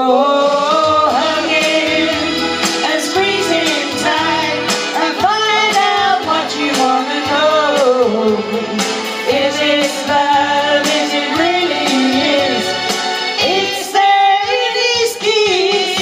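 Two women singing together into handheld microphones over amplified backing music with bass and a steady beat.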